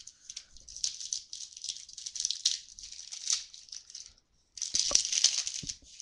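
Trading cards being handled and sorted by hand: a steady crinkling and rustling with small clicks, a brief pause just after four seconds, then a louder stretch of crinkling about five seconds in.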